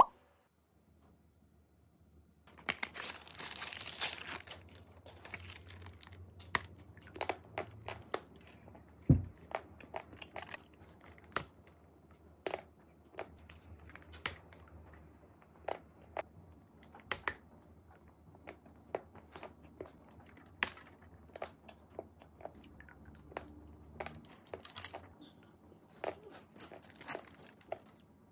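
Close-up eating sounds. About three seconds in comes a crinkling, tearing rustle, then a long run of crunchy bites and chewing with sharp clicks, and one low thump about nine seconds in.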